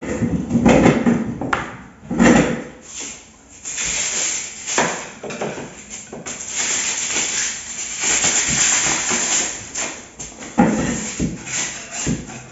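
Hand tool scraping old expanding polyurethane foam off the edge of a window opening: a rough, sustained scraping, broken by several sharp knocks against the frame and sill.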